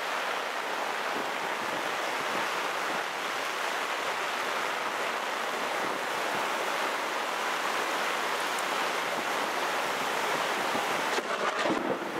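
Heavy rain falling steadily on a canopy and the wet grass and gravel around it, with water running off the canopy edge. A few brief knocks near the end.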